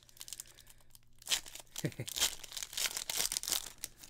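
Foil wrapper of a football trading-card pack being torn open and crinkled by hand: a dense run of crackling crinkles starting about a second in and dying down near the end.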